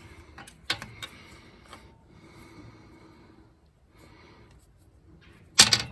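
Light metallic clicks and clinks of engine parts, lifters and the like, being handled during the teardown of a Ford 351 Windsor V8. A sharp click comes about a second in, and a louder metal clatter comes near the end.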